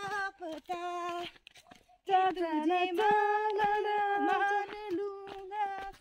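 A woman singing unaccompanied, holding long, mostly steady notes, with a short pause about a second and a half in.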